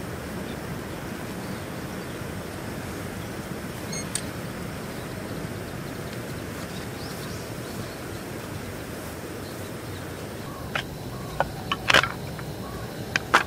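Steady outdoor background noise, with a handful of sharp knocks and clicks near the end, the loudest about twelve seconds in, as camp gear is handled on the ground.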